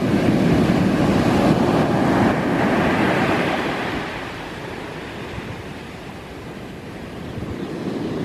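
Large ocean waves breaking on the shore. A loud wash of surf fills the first few seconds, then fades, and the next wave builds near the end.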